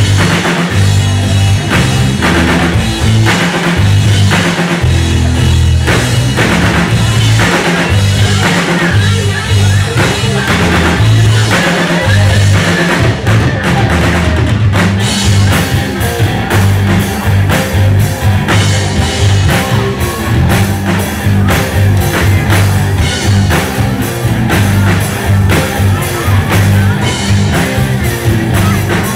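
Rock band playing live and loud: electric guitar, bass guitar and drum kit, the drums keeping a steady beat under changing bass notes.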